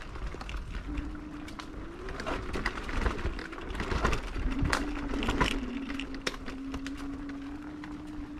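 Kick scooter rolling over a rough, stony path: scattered knocks and rattles as the wheels hit sharp stones, over a low rumble. A steady low hum comes in about a second in, drops out briefly, and holds from about halfway on.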